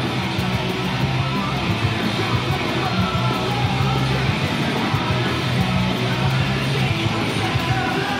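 Single-cutaway electric guitar played continuously through a small combo amplifier.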